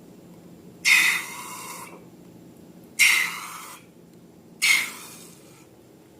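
Three short, airy squelching bursts of slime being squeezed and worked, each starting sharply and fading over about a second.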